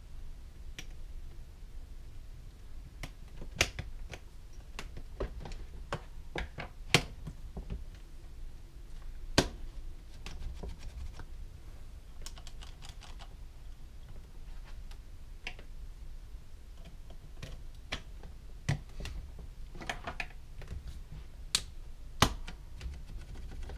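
Irregular small clicks and taps of metal airsoft gearbox shell halves and internal parts being handled and pressed together by hand while the gearbox is closed, with a few sharper knocks spread through.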